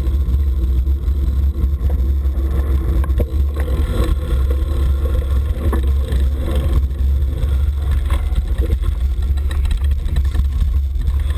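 Wind buffeting an action camera's microphone on a moving road bike: a loud, steady low rumble, with a lighter hiss of tyre and road noise above it.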